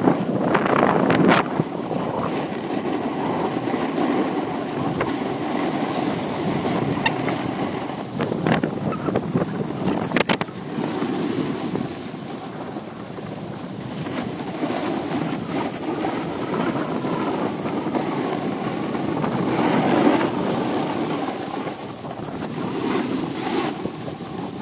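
Wind rushing over a hand-held phone's microphone while a snowboard slides and scrapes over packed snow during a downhill run, with a few short knocks around eight and ten seconds in.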